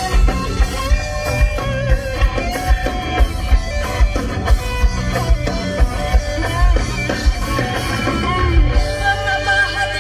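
Live ska band playing amplified music: electric guitars, bass and drum kit over a steady beat, with some singing.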